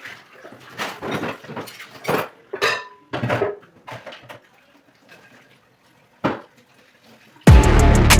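Dishes and kitchen utensils clattering while being washed or handled: a quick run of clinks and knocks over the first few seconds, then a single knock a few seconds later. Background music starts just before the end.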